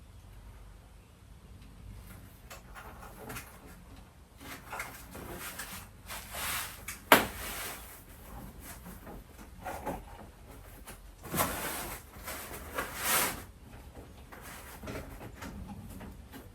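Plastic prop parts being handled and fitted together: scattered clicks and rustling, with one sharp knock about seven seconds in.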